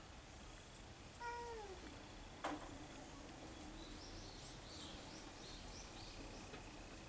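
A domestic cat meows once, a short call falling in pitch, about a second in. A sharp click follows about a second later, and a quick run of faint high chirps comes in the second half.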